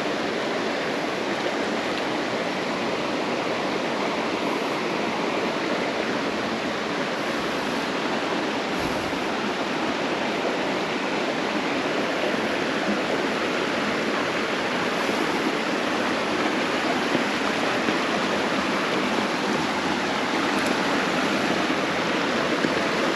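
Creek water flowing, a steady even rushing.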